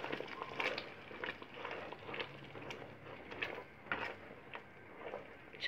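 A spoon stirring thick, nearly set red grape jam in a large metal pot: light, irregular taps and scrapes against the pot.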